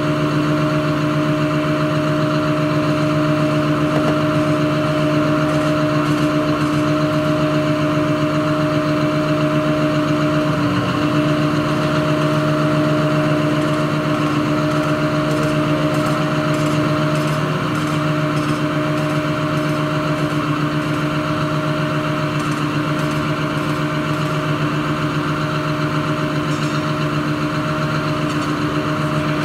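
CAT 330F excavator's diesel engine idling steadily with an even hum, its pitch wavering briefly twice.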